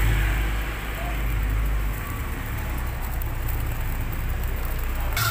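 Steady low rumble with a hiss from a gas stove burner's flame under an aluminium wok of heating cooking oil. The rumble shifts slightly about two seconds in.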